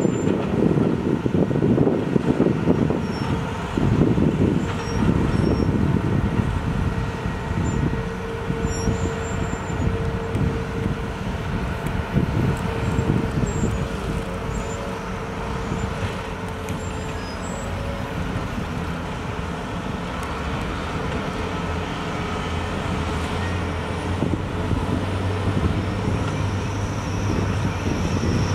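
Diesel engines of large hydraulic excavators and dump trucks running steadily, rougher and louder in the first few seconds. A steady low engine tone grows stronger in the last few seconds.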